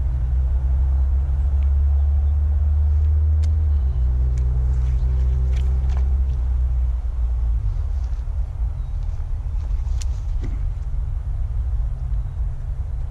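Low, steady engine rumble of a motor vehicle, its note shifting about four seconds in and the pitched part fading out soon after, with a few light sharp clicks over it.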